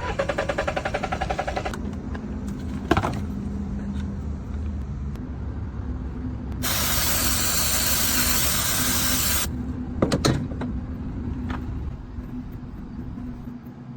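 Car engine cranking in rapid even pulses for under two seconds, then a steady low engine hum. A loud hiss runs for about three seconds in the middle, and a few sharp clicks come near 3 and 10 seconds.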